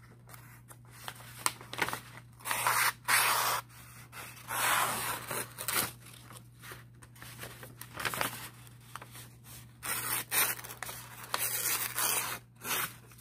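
Cold Steel Finn Wolf folding knife with an AUS-8 steel blade slicing through sheets of printer paper, about eight separate papery slicing strokes. The paper is a test of the edge's sharpness, and the blade cuts it cleanly.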